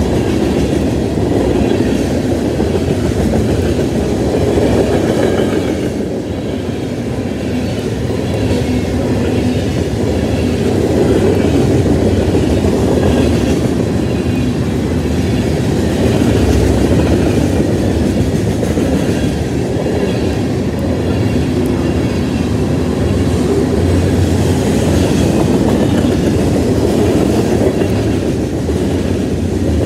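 Freight cars of a Union Pacific manifest train rolling past close by: lumber flatcars, tank cars and covered hoppers, their steel wheels running on the rails in a loud, steady rumble.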